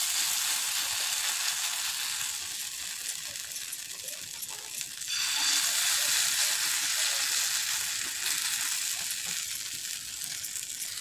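Portions of bitter-greens and rice-paste batter sizzling on a hot iron griddle. The sizzle grows louder about five seconds in, as a second portion goes down.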